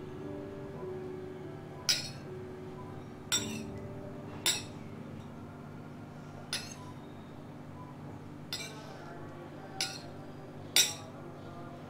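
Steel kitchen knife clinking against a stone worktop about seven times at irregular intervals as it lifts and folds strips of dough, with soft background music underneath.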